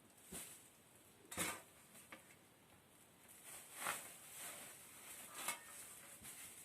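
A few faint, sharp knocks and clicks at irregular intervals, the strongest about a second and a half in and again near four seconds.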